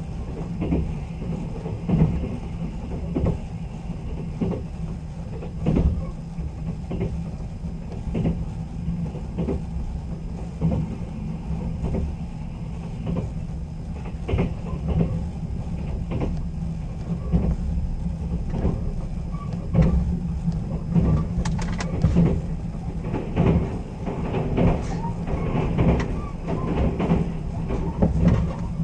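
Running noise of a moving train heard inside a sleeper express carriage: a steady low rumble with wheels knocking over rail joints every second or so.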